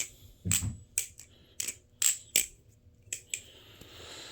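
Metal-handled balisong (butterfly knife) being flipped: handles and blade clacking together in a quick, irregular series of sharp metallic clicks, about eight in four seconds.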